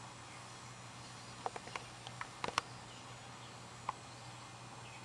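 Quiet outdoor ambience: steady low hum and hiss with faint, distant bird calls, and a quick cluster of short sharp chips or clicks about one and a half to two and a half seconds in, with one more near four seconds.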